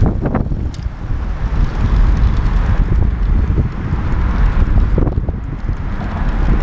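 Wind buffeting the microphone of a camera mounted on a moving bicycle, over a steady low rumble from the ride on pavement. A few short knocks and rattles come from the bike, near the start and again about five seconds in.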